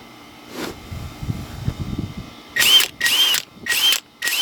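Earthquake XT 20-volt cordless impact wrench run free in four short trigger pulls, each whirring up and back down in about a third of a second, after some low handling noise.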